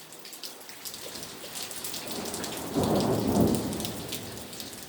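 Thunder rolling during a rain and hail storm: steady pattering and ticking of rain and hail, with a rumble of thunder swelling a little under three seconds in and fading away near the end.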